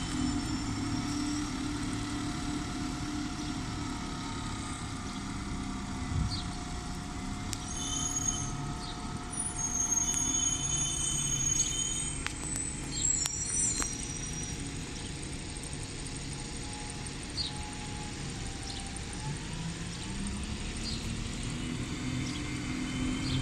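Diesel single-deck buses running and manoeuvring at low speed, a steady engine drone whose pitch rises near the end as one pulls away. A few brief high chirps sound over it midway.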